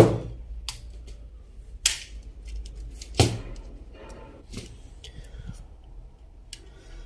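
Sharp clicks and taps of small plastic parts and tools being handled while an opened electric mosquito racket is worked on, a few separate strikes with the loudest at the very start.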